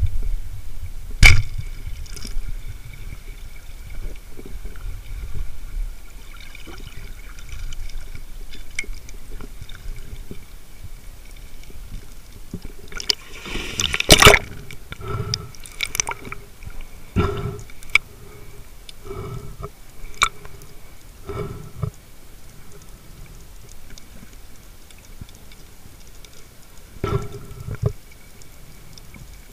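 Underwater sound from a spearfisher's camera: sharp clicks and knocks of speargun gear against rock and water, with one sharp click about a second in and the loudest cluster of knocks about halfway through, over a low wash of water.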